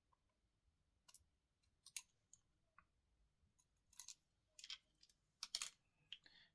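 Faint, scattered small clicks and light taps of hand tools and plastic parts on the phone's internals during disassembly, a few in quick succession near the end.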